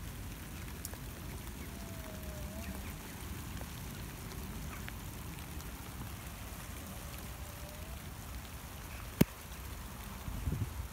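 Steady rain falling, with drops landing on a corrugated metal sheet fence. A single sharp click comes about nine seconds in.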